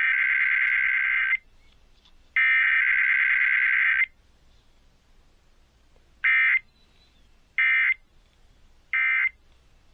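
Emergency Alert System SAME digital data tones over the radio: two buzzy, warbling header bursts of about a second and a half each, then three short end-of-message bursts about a second apart.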